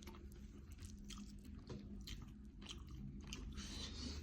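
A person chewing food close to the microphone, with irregular small wet clicks and crunches. A low steady hum sits underneath.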